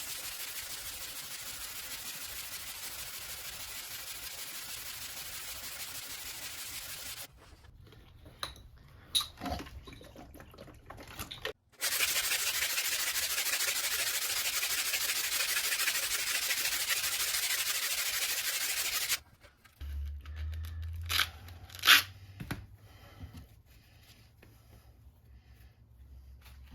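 Hand sanding with sandpaper and a Diablo SandNet sanding net: two long stretches of steady, dense scratching, the second louder, with a few sharp knocks and clicks between them and near the end.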